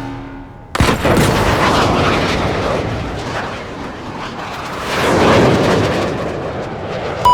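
Sci-fi combat drone sound effect: a sudden loud start about a second in, then a rough, jet-like roar that swells and eases for several seconds. A few short electronic beeps come right at the end.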